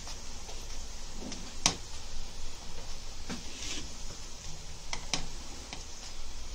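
Slotted spatula pressing a paratha down in a nonstick frying pan as it roasts, with a few sharp knocks of the spatula on the pan over a faint steady hiss.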